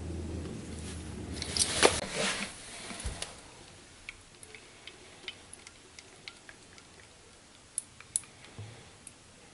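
Ingredient handling over a stainless steel saucepan: a brief rustle and clatter about two seconds in as salt goes into the pan, a soft knock, then scattered light clicks and taps as maple syrup is poured into a metal measuring cup. A low hum stops about two seconds in.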